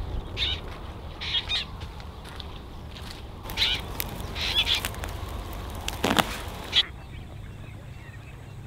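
Birds calling outdoors, a short call every second or so, with two sharper, louder calls around six seconds in, over a low steady rumble.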